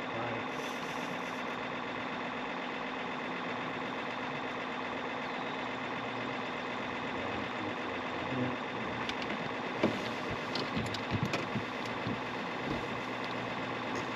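Boat motor running steadily with an even hum. Several sharp knocks and clicks sound about ten seconds in.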